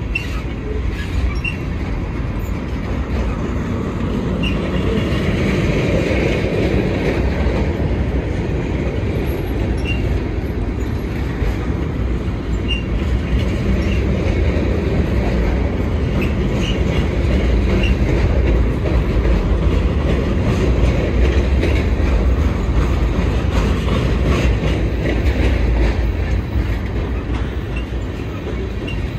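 Freight train cars rolling past: a steady rumble of wheels on rail with clatter over the rail joints and a few brief, high wheel squeals scattered at irregular intervals.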